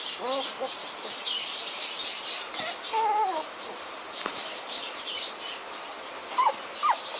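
Young puppies whimpering and squeaking: short rising whines near the start, a longer wavering whine about three seconds in, and a few sharp squeaks near the end.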